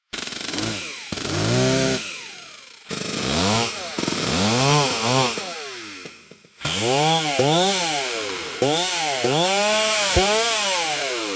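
Chainsaw engine running and revving in quick repeated throttle blips, its pitch rising and falling with each one, about a dozen times. The sound jumps abruptly a few times, as between spliced takes.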